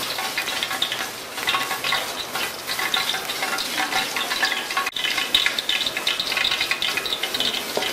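Ghee heating in an aluminium pot on a gas burner, sizzling and crackling steadily as it comes up to frying heat for a tadka, with a momentary break about five seconds in.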